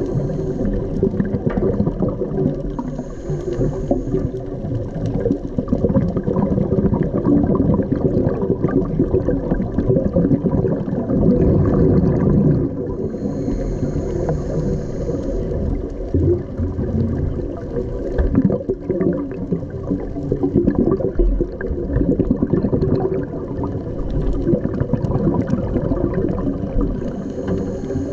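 Underwater sound picked up by a diving camera: a steady low rush of water full of fine bubbling crackle, with a faint high hiss every ten seconds or so.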